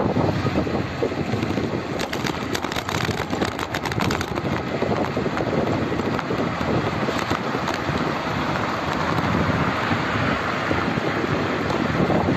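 Wind rushing over the microphone of a camera moving along a road, a steady noise, with a run of light clicks about two to four seconds in.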